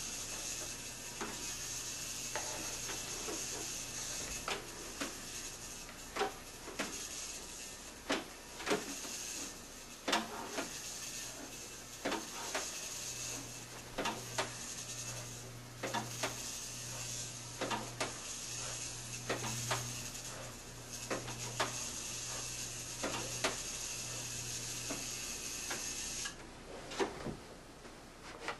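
Handheld degaussing coil humming low and steadily from the mains current, as it is waved close to a CRT television to demagnetise the screen and clear its colour discolouration. The hum grows louder partway through and fades again near the end, over irregular sharp clicks and ticks throughout.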